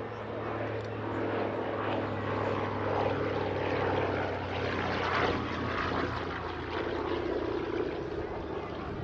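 Douglas C-41A's twin Pratt & Whitney Twin Wasp radial engines running with a steady propeller drone, swelling to its loudest about halfway through and easing off again.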